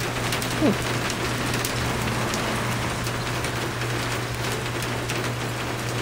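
Heavy rain, which the onlooker takes for partly frozen snow, pelting a wet asphalt driveway and parked cars: a steady hiss dotted with many sharp ticks of drops. There is a short falling tone a little over half a second in.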